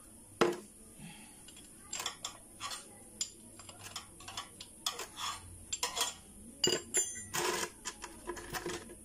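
Metal spanner clinking and knocking against the drain bolt and engine casing as the oil drain plug under a Benelli motorcycle engine is worked loose. It is an irregular string of short metallic clicks, with one sharp knock about half a second in and busier clinking later on.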